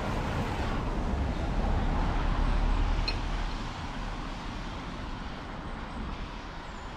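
A passing motor vehicle: a low rumble with road noise that swells to its loudest about two to three seconds in and then slowly fades away.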